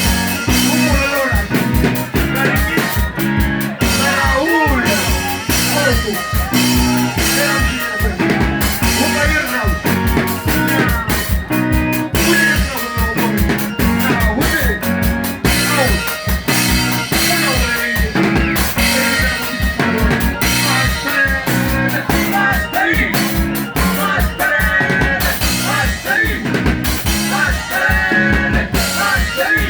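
Band music with a steady, quick drum-kit beat under bass and melodic lines.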